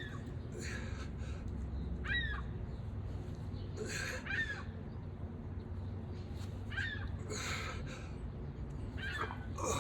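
Birds outdoors giving short calls, one every two seconds or so, over a low background rumble.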